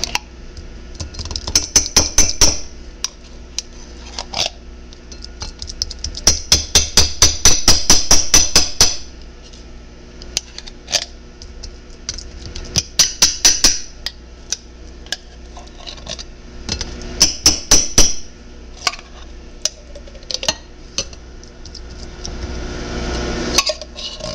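A metal can of refried beans being opened and emptied: several runs of rapid metallic clicking and tapping, about five strokes a second, each run lasting one to three seconds, with short pauses between.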